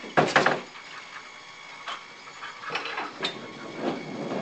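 Toy bowling pins and ball knocking and clattering: a quick cluster of knocks just after the start, then a few scattered lighter clicks.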